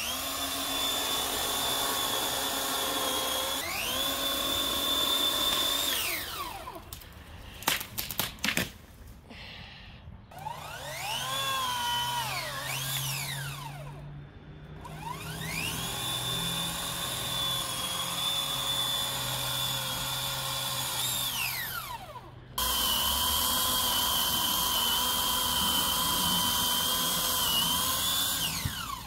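Handheld electric power tool motor, drill-like, speeding up to a steady high whine and winding down again, about five times, with a few quick stop-start bursts in the middle and some sharp knocks about eight seconds in.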